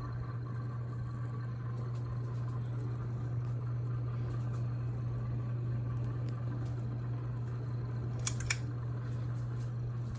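30-inch Harbor Breeze Breezeway ceiling fan running with a steady low motor hum. Two sharp clicks come close together about eight seconds in.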